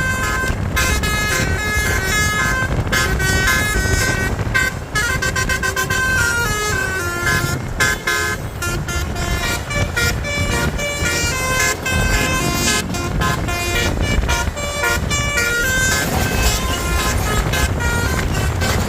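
Bus basuri telolet horn playing a quick melody of short, stepped horn notes over the low rumble of the bus.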